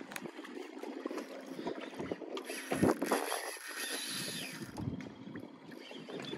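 Wind buffeting the microphone over water lapping at a small boat's hull, with a louder low gust about three seconds in.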